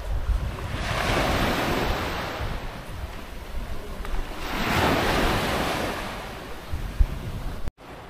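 Small waves washing up on a sandy beach, two swells of surf about three seconds apart, with wind rumbling on the microphone. The sound cuts out abruptly near the end.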